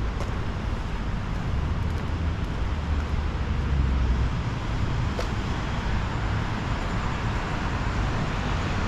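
Road traffic going by, with a vehicle's low engine rumble swelling about two to four seconds in over a steady hiss of tyres.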